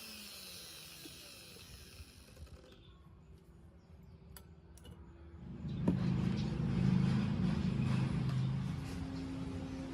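An electric power tool coasting down and fading out, a few seconds of quiet with small ticks, then a motor starting up with a click and running with a steady low hum, easing off slightly near the end.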